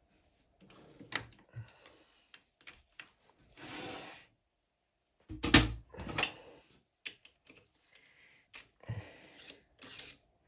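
Metal clicks and knocks of a die and small tools being handled while 1/8 in 40 TPI Whitworth threads are cut by hand. There is a short scraping burst about four seconds in and one loud knock a little after the middle.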